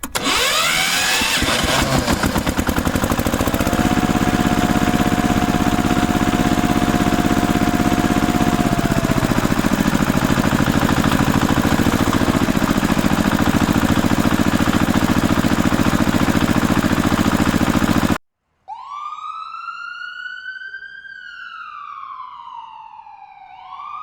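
A loud harsh buzzing noise with a fast, even pulse, which cuts off suddenly after about 18 seconds. Then an electronic police-style wail siren starts, sweeping slowly up, down and up again.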